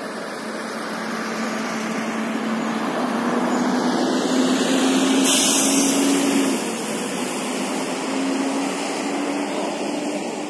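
Street traffic: a motor vehicle's engine drone rising in pitch and growing louder, dropping away about six and a half seconds in, with a brief hiss about five seconds in.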